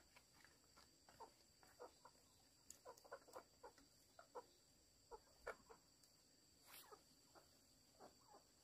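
Chickens clucking softly, with short calls scattered irregularly throughout.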